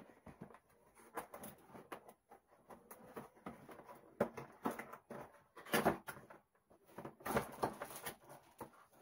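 Cardboard box of a ring light being handled and opened by hand: irregular scraping, tapping and crackling of the cardboard and packaging, loudest about six seconds in and again near the end as the end flap is pulled open.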